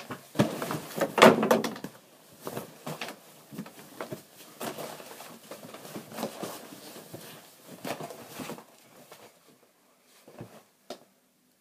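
Irregular knocking, clattering and rustling, as of things being handled and moved about, thinning out to a couple of isolated clicks near the end.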